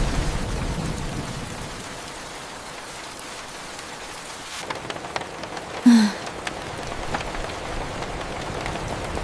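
Steady rain falling, with a low thunder rumble dying away in the first second or so. About six seconds in comes a brief low pitched tone falling in pitch, the loudest moment.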